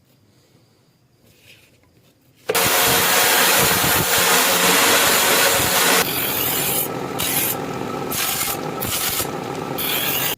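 Abrasive working the steel of a knife blade: a loud, steady grinding hiss starts suddenly about two and a half seconds in, then from about six seconds it goes on a little quieter as a series of uneven rubbing strokes.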